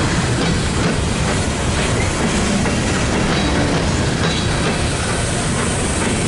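Empty coal hopper cars of a freight train rolling past, a steady loud rolling noise with repeated clicks from the wheels over the rails.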